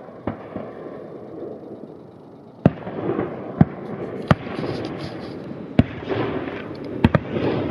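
Fireworks display: aerial shells bursting with a series of sharp bangs, about seven in all, the loudest a little under three seconds in and a quick double bang near the end, over a continuous noisy rumble that thickens after the first big bang.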